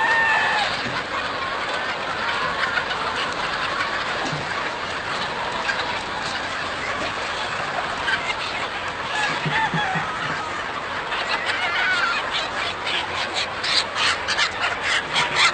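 A large flock of chickens clucking and squawking all at once in a dense, continuous din, with a quick run of sharp patters near the end.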